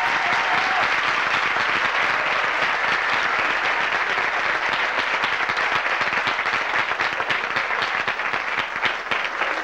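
Audience applauding, a dense steady clapping that thins toward the end into more separate claps.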